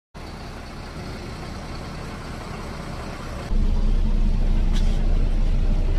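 Steady low rumble of a bus's engine and road noise heard inside the passenger cabin, starting suddenly about three and a half seconds in after fainter steady noise.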